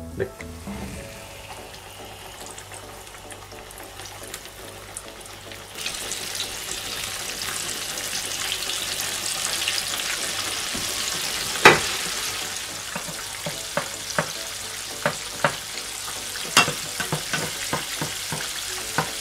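Whole flour-coated sea bream deep-frying in hot oil. The oil is fairly quiet at first, then breaks into a dense sizzle about six seconds in as the fish settles into the oil. Sharp crackles and spatters of oil punctuate the sizzle, the loudest about twelve seconds in.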